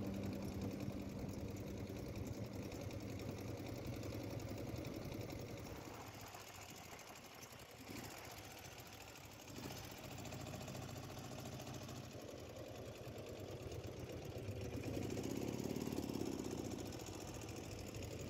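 A vintage motorcycle engine running steadily and fairly faintly, a little louder for a couple of seconds near the end.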